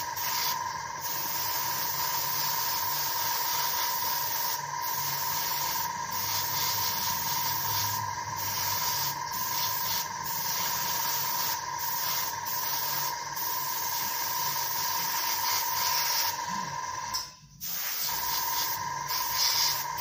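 Harder & Steenbeck Ultra gravity-feed airbrush spraying paint at about 20 psi: a steady hiss with a constant whistling tone under it, briefly thinning several times as the trigger is eased. The air cuts off for about half a second near the end, then comes back.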